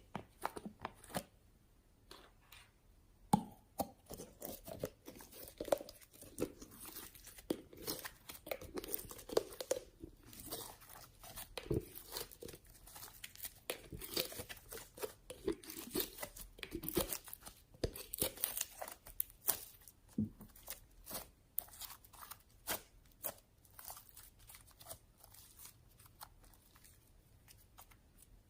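Slime being squeezed and mixed by hand, giving an irregular run of sticky pops, clicks and squelches that thins out near the end.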